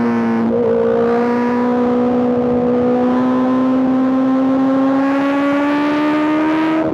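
Honda CBR650R's inline-four engine running through an Arrow aftermarket exhaust under way. The engine note dips briefly near the start, then rises slowly and steadily as the bike accelerates through a gear.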